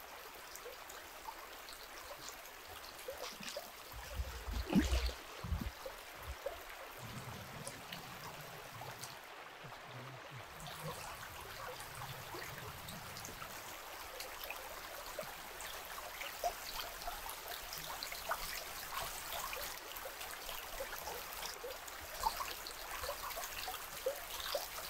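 A small river flowing and trickling in a steady, faint wash. A few low thumps come about four to five seconds in.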